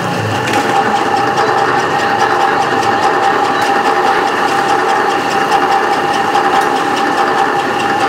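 A motor running steadily and loudly, with a constant whine and a fast, even rattle.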